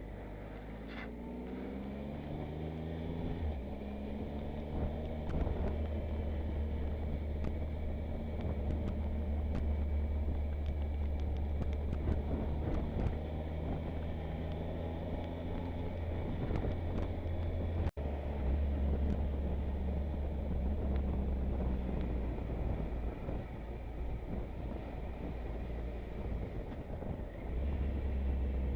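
Motorcycle engine rising in revs over the first few seconds, then running steadily at cruising speed under wind rush. Scattered sharp ticks are heard through the middle stretch.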